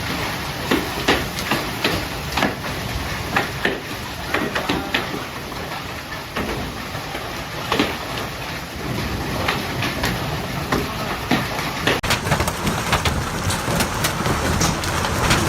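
Heavy hail pelting down: a dense rushing noise with many sharp individual stone impacts. The sound changes abruptly about twelve seconds in and the hail grows somewhat louder.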